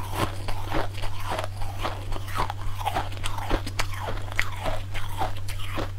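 Biting and chewing into a clump of packed, powdery ice: a rapid run of crisp crunches, several a second, over a steady low hum.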